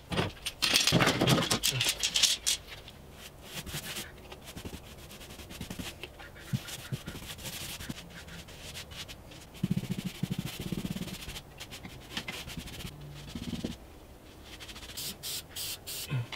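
Paint being worked onto a wall with repeated rubbing strokes, after a few loud clattering handling sounds at the start. Near the end come short, evenly spaced hisses of an aerosol spray-paint can.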